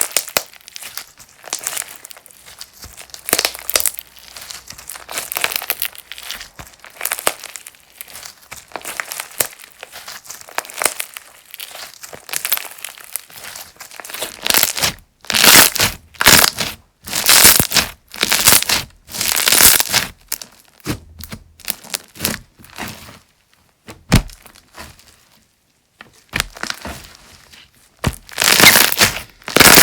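Slime being squeezed and pressed by hand, full of crackling, crunchy pops. From about halfway, louder squeezes come about once a second, with a short pause before a final loud squeeze near the end.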